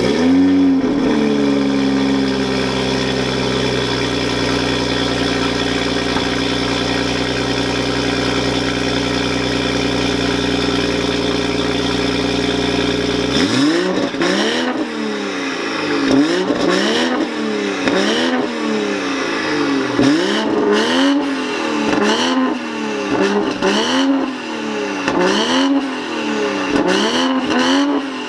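Toyota GR Supra engine breathing through an Armytrix catless downpipe, flaring just after start-up and settling into a steady idle. About halfway through it is blipped repeatedly, roughly once a second, each rev rising and dropping back.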